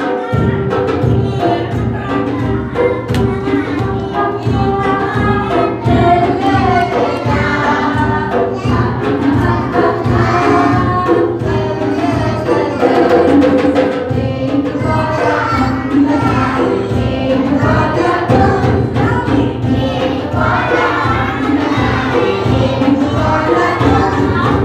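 A group of young children singing together to live band accompaniment, with a steady beat.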